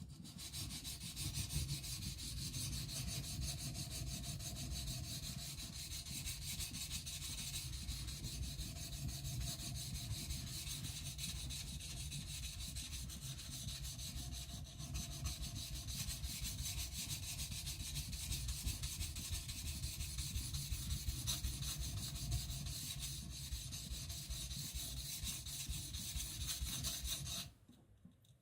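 Steel kiridashi blade scraped in fast, continuous strokes across a wet coarse 220-grit whetstone, grinding away its secondary bevel; the scraping stops abruptly near the end.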